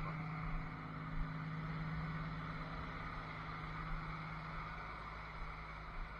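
Cummins ISL six-cylinder diesel in a medium-duty truck running steadily with an even low hum during a parked DPF regeneration. A couple of light knocks about a second in and near the end.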